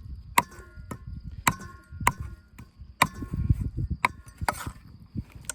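A series of about seven sharp knocks at uneven intervals, roughly one a second, each with a short metallic ring.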